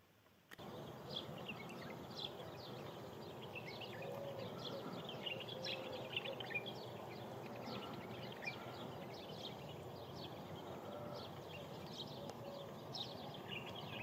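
A busy chorus of small birds chirping and twittering over a steady low background noise, starting abruptly about half a second in.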